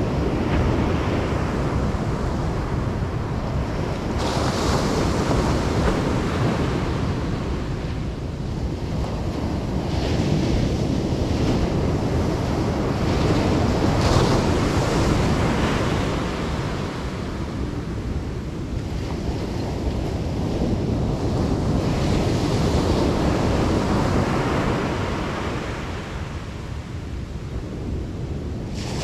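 Ocean surf washing onto the beach in swells that rise and fall every few seconds, with wind rumbling on the microphone.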